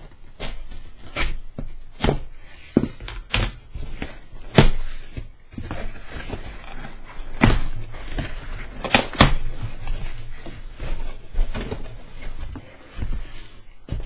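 Cardboard parcel being opened by hand: scissors cutting the packing tape, then the cardboard flaps pulled apart and handled, giving irregular crackles, rips and knocks.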